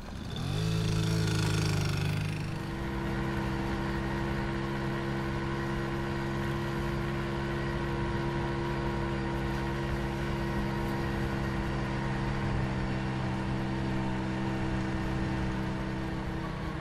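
Small moped engine coming up to speed about half a second in, its pitch rising, then running at a steady, even pitch from about two and a half seconds in.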